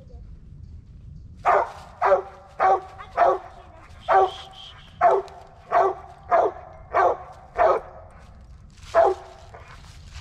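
Original Mountain Cur squirrel dog barking at the base of a tree, a treed bark telling the hunter a squirrel is up the tree. About ten sharp barks come in quick succession, roughly one or two a second, then a short pause and one last bark near the end.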